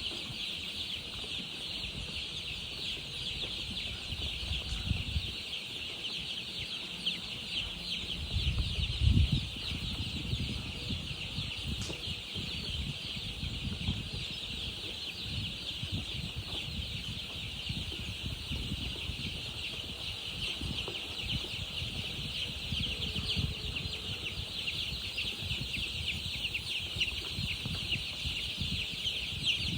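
A brood of baby chicks peeping continuously, many high chirps overlapping into a steady chorus. Low knocks and rumbles come and go underneath, the loudest about nine seconds in.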